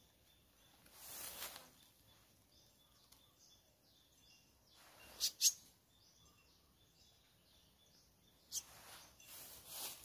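Leaves and twigs rustling in three short bursts as a gloved hand works in a bush. The middle burst is the loudest, with two sharp snaps. Faint bird chirping repeats underneath.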